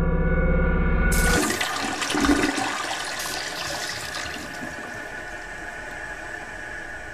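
Toilet flushing: a rushing swirl of water starts about a second in, surges briefly just after two seconds, then slowly dies away. Before it, a low pitched drone cuts off.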